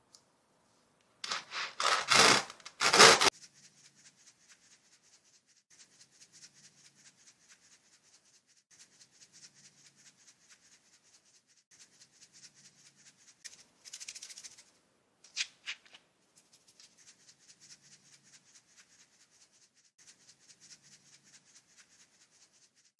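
Plastic squeeze bottles of glitter glue being squeezed out by hand: a few loud noisy squirts in the first seconds, then a faint steady crackling as the glue is pressed out, with a short sharp click about fifteen seconds in.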